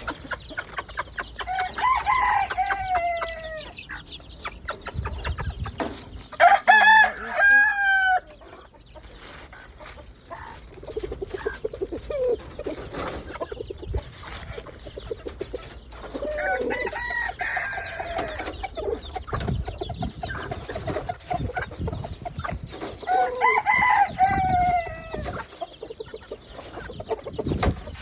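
Chickens clucking throughout, with several longer drawn-out calls: the loudest comes about six to eight seconds in, and others come around two, seventeen and twenty-four seconds.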